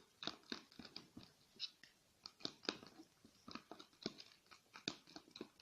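Clear glue and thick liquid soap being stirred together in a bowl with a stirrer, giving short, irregular sticky clicks several times a second.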